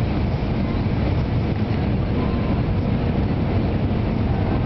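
Steady low rumble inside the passenger cabin of an Airbus A319 descending on approach, the noise of its engines and the air rushing past the fuselage.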